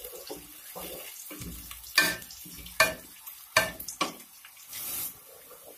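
Sliced onions sizzling in hot oil in an aluminium pot as they brown, stirred with a wooden spoon. Four sharp knocks of the spoon against the pot come between two and four seconds in, each with a short metallic ring.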